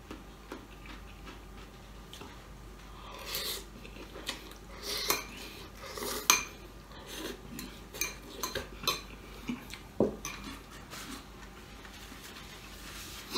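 Metal fork clinking and scraping against a glass bowl of noodles, scattered sharp clicks with the loudest about six seconds in, along with slurping and chewing as the noodles are eaten.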